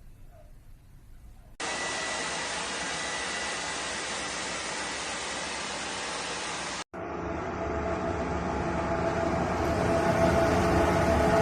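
A steady rushing noise starts about one and a half seconds in and cuts off abruptly near seven seconds. A second rushing noise with a faint hum then follows, growing gradually louder.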